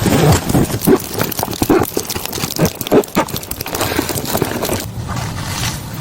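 Irregular series of short knocks or thuds, a few each second.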